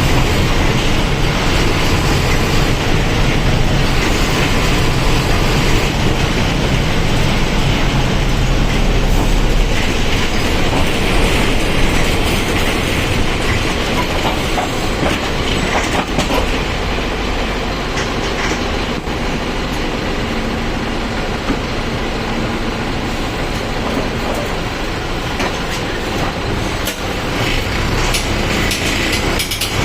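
Mercedes-Benz OF1722M bus's diesel engine running while the bus is driven, heavier for the first ten seconds or so and then easing off, with rattling and clicking from the bus body throughout.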